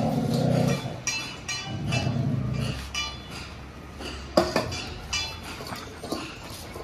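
Stainless-steel dog food bowls clinking and scraping on a tiled floor as dogs eat from them, with one sharp clink about four and a half seconds in. Two low, drawn-out sounds come in the first three seconds.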